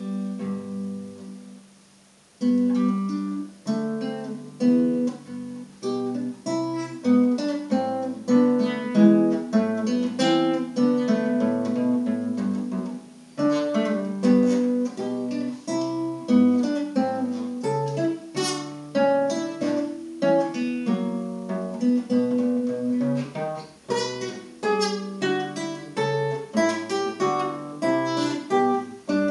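Solo classical nylon-string guitar, fingerpicked: a running line of single plucked notes over a bass line. The sound fades to a near-silent pause about one to two seconds in before the playing picks up again.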